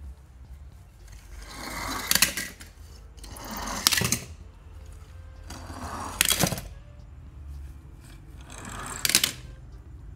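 Die-cast toy cars rolling down a plastic board, one after another, four times. Each run is a rushing rumble that grows over about a second and ends in a sharp clatter as the car lands among other toy cars.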